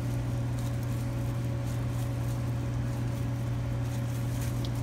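Steady low machine hum with a fainter higher tone running above it, unchanging throughout. Faint soft rustles of plastic-gloved hands laying pepperoni slices on a sub roll.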